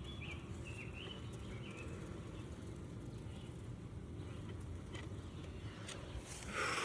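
Honeybees humming steadily around an opened hive, with a few short bird chirps early on and a brief rustling noise near the end.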